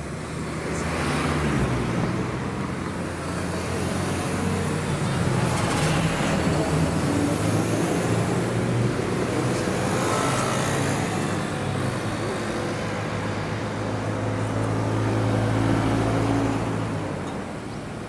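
Road traffic: motor vehicles running and passing close by, a steady engine hum under tyre and road noise that swells in the first couple of seconds and drops off shortly before the end.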